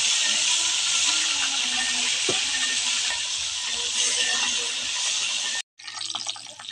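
Small whole fish deep-frying in a wok of hot oil over a gas burner: a loud, steady sizzle. It cuts off abruptly about five and a half seconds in, then returns quieter with fine crackling.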